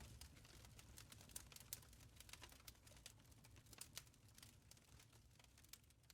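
Faint wood fire crackling, with scattered sharp pops over a low rumble, slowly fading out.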